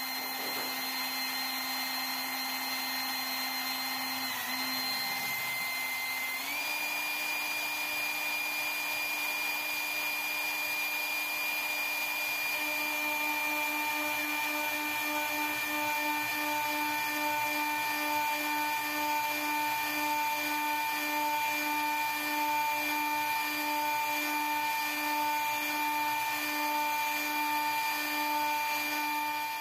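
CNC milling machine's spindle and end mill cutting a metal plate under flood coolant: a steady whine over cutting noise that steps up in pitch about six seconds in, then pulses evenly about twice a second from about thirteen seconds in.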